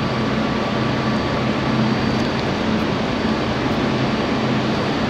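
Steady, loud rushing roar with a low hum underneath, unbroken throughout, typical of work noise in a steelworks cellar during demolition stripping.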